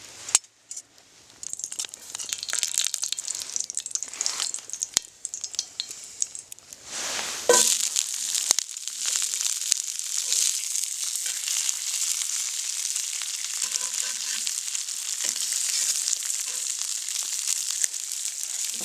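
Food frying in hot ghee in a pan: scattered crackling at first, then a louder burst about seven and a half seconds in, after which it sizzles steadily.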